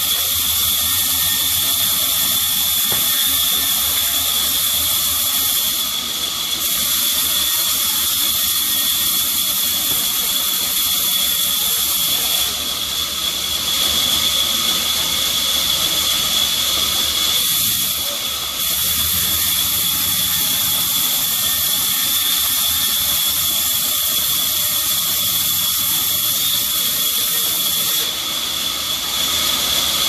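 Vertical band saw ripping a mahogany log into boards: a steady high-pitched whine over a loud hiss, easing briefly a few times as the cut goes on.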